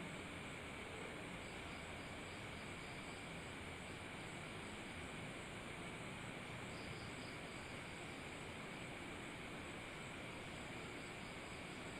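Faint steady hiss with a thin, continuous high chirring of crickets.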